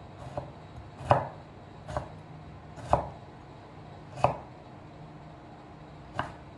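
Kitchen knife slicing through a tomato and knocking on a wooden cutting board: six separate cuts at uneven intervals of roughly a second. The loudest knocks come about one, three and four seconds in.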